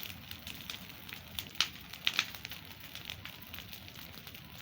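Fire of dry weeds burning, crackling with irregular sharp pops.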